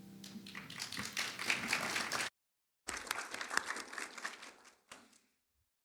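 Applause from a small congregation, quick hand claps. It cuts out suddenly about two seconds in, comes back half a second later, then thins out and stops about a second before the end.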